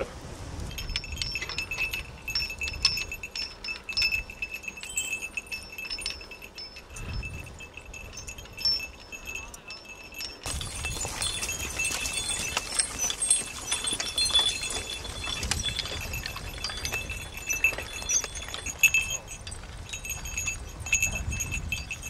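Metallic jingling and clinking of draft-horse harness and trace chains, repeated high ringing notes with occasional low thuds of movement; about halfway through it turns busier and more rattling as a pair of horses pulls a wooden chain harrow.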